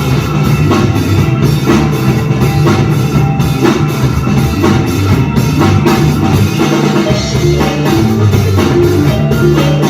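A live band playing, with a drum kit driving a steady beat over a strong bass line.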